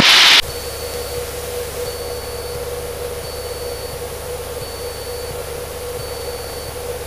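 Cessna 152's four-cylinder Lycoming engine and propeller running steadily at cruise, heard inside the cockpit as an even drone with a low rumble and a steady hum. A faint high beep repeats about every second and a half.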